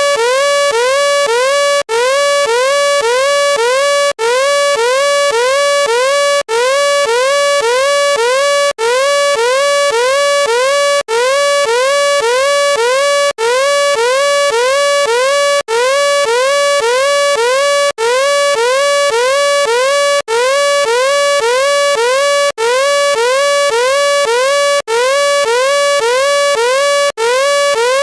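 Electronic warning alarm: a buzzy synthetic tone that sweeps up in pitch about twice a second, repeated over and over with a brief break about every two seconds.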